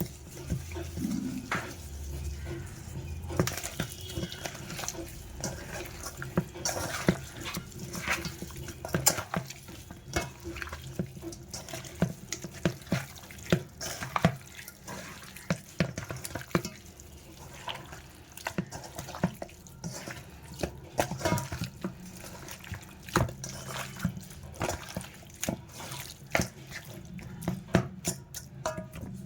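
Kitchen work sounds: liquid running or splashing, with irregular clinks and knocks of utensils and dishes throughout.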